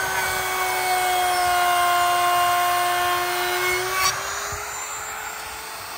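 Handheld router with a flush-trim bit running at full speed, a steady high whine, as it trims the end of a fascia board flush. About four seconds in there is a click, and the router comes off the cut: it gets quieter and its pitch rises slightly as it runs free.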